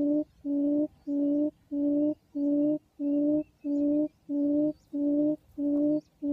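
Recorded field-quail call played through a phone's speaker as a lure: one low, steady hoot repeated evenly, about one and a half times a second.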